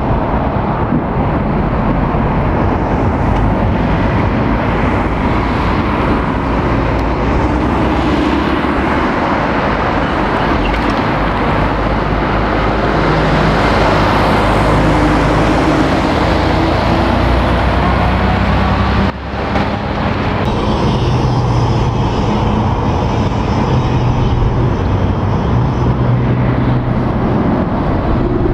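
Articulated lorries driving round a roundabout: diesel engines and tyre noise, loudest as a curtainside artic passes close about halfway through. After a brief drop in level, another lorry's engine drones with a steady low note.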